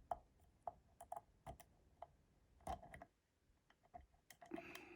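Faint, irregular metallic clicks and ticks from a dimple pick and tension tool working the pins inside a Brisant Ultion dimple lock cylinder.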